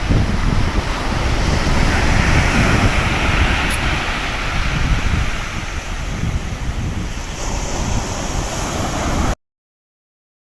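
Sea waves washing onto the shore, with wind rumbling on the microphone; the sound cuts off suddenly near the end.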